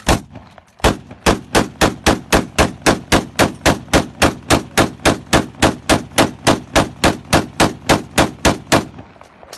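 Kalashnikov-type rifle (AK-47/AKM) firing: one shot, a short pause, then a long string of rapid, evenly spaced single shots at about five a second for some eight seconds, stopping abruptly near the end.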